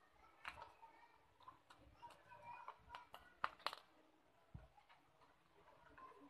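Near silence: quiet room tone with a few faint clicks and taps, the loudest about three and a half seconds in.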